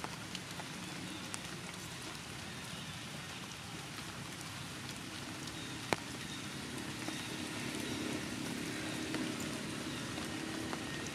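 Steady rain falling, an even hiss with scattered sharp ticks of drops striking close by, one louder tick about six seconds in.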